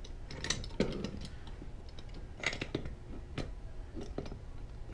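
Irregular clicks and knocks of BelGAS P300 gas regulator parts being handled and fitted together: the regulator body set against the housing extension and union ring, with a handful of sharper knocks among lighter handling sounds.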